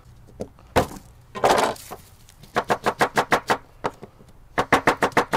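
Kitchen knife chopping elephant garlic on a cutting board: a single knock and a short crunch, then two quick runs of chops, about eight a second.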